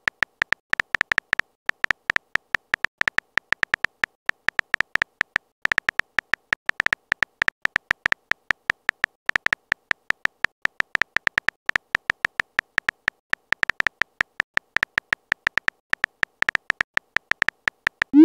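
Phone keyboard typing sound effect: a rapid, uneven run of short high clicks, one per keypress, with a couple of brief pauses.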